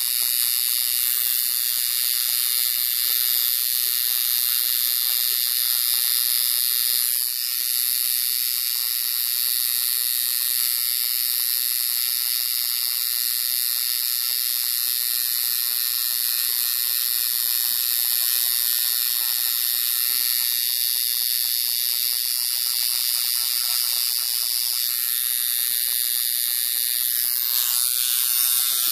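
Coil tattoo machine buzzing steadily as it drives the needle into skin, a fast high rattle that dips briefly about seven seconds in.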